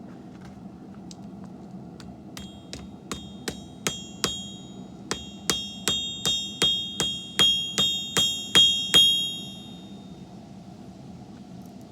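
Hand hammer striking steel on an anvil while forging a bandsaw-blade axe: a few light taps, then a run of about sixteen ringing blows, two to three a second, growing louder before stopping near the end.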